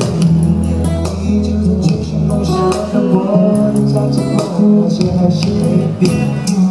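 Live pop song through a PA system: a man singing into a handheld microphone over a backing track with guitar and a steady beat.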